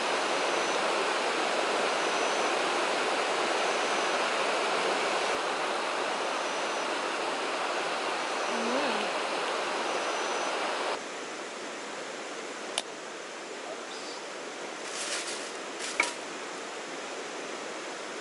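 Steady outdoor rushing noise with faint short high chirps repeating every second or two, which cuts off abruptly about eleven seconds in. After that it is quieter, with two sharp knocks of a kitchen knife on a cutting board as a red bell pepper is cut.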